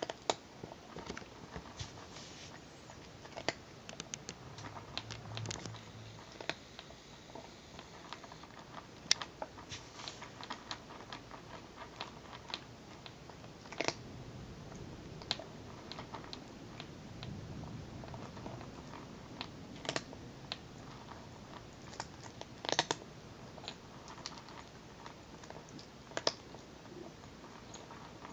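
Calico cat crunching dry kibble from a plastic bowl: an irregular run of sharp crunches and clicks as the pellets are bitten and knock against the bowl.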